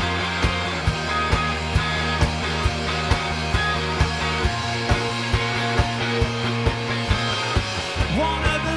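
Pop/rock band playing live, an instrumental passage with a steady drum beat of about two hits a second under sustained bass and guitar notes.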